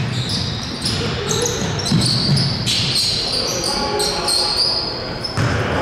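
Basketball game play on an indoor court: a ball bouncing on the hardwood, with many short, high sneaker squeaks over the echo of the gym.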